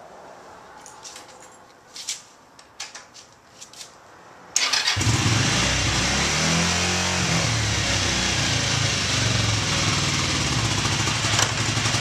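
Yamaha XZ550 V-twin motorcycle engine, silent at first apart from a few light clicks, starts abruptly about four and a half seconds in and keeps running steadily. It is running now that the stuck kickstand safety-switch plunger has been freed.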